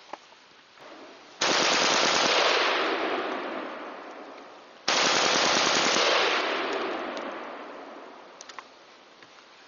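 Palmetto State Armory AR-15 bump-fired with a bump board, in two rapid strings of shots about three and a half seconds apart, each fading out over a couple of seconds. The rifle is cycling steel-cased ammunition after an extractor upgrade.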